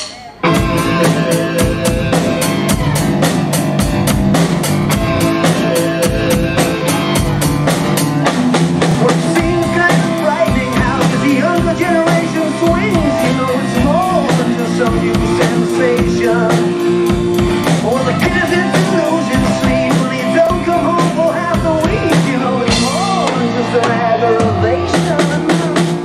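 Drum kit played live along with a rock backing track with singing, starting abruptly about half a second in and running at a steady, loud level with dense, regular drum hits.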